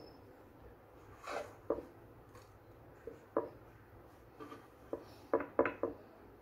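Serrated knife trimming crusts off bread slices on a wooden chopping board. Short knocks and taps as the blade and bread meet the board, scattered at first, then several in quick succession near the end.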